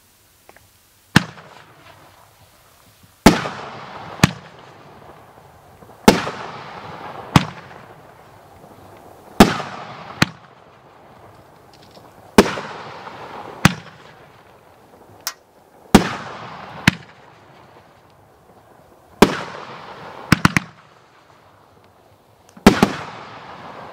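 A 3-inch fireworks cake firing its shells of brocade and dahlia effects. Sharp booming reports come every two to three seconds, often with a second, smaller one about a second later, and each trails off in a fading rush of noise. A quick burst of three reports comes near the end.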